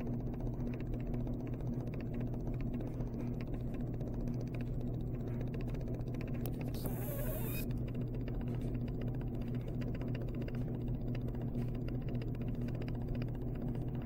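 A steady low hum, with a short burst of hiss about seven seconds in.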